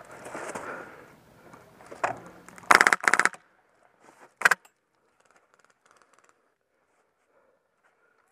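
Polarstar HPA-converted airsoft M249 firing two short full-auto bursts close together about three seconds in, then a shorter burst a second and a half later. Before them there is scuffing and rustling of movement behind the barricade.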